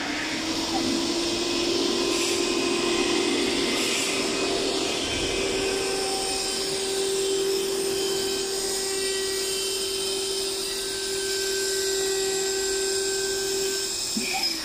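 Milling spindle of a Richpeace template cutting machine spinning up, then running with a steady whine over a hiss as it mills a template sheet. The whine winds down just before the end.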